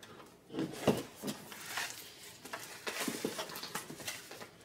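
Replacement keyboard keycaps in their plastic tray being handled: irregular light clicks and plastic rustling.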